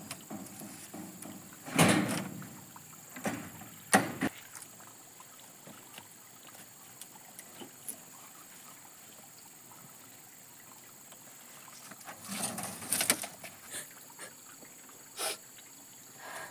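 Belongings being handled and packed into a woven basket: scattered knocks, thumps and rustles, the loudest a thump about two seconds in and a sharp knock about four seconds in, with another cluster of knocks near the end.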